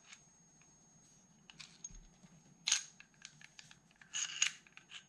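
Small metallic clicks and scrapes from a Llama .32 pistol's slide, recoil spring and guide as they are handled and fitted during reassembly. Quiet at first, then scattered clicks from about a second and a half in, the loudest near the middle and a cluster near the end.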